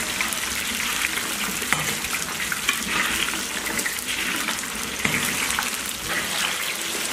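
Starch-coated eggplant pieces deep-frying in hot oil in a large iron wok, a steady crackling sizzle. A metal slotted skimmer stirs them, with a few light taps against the wok.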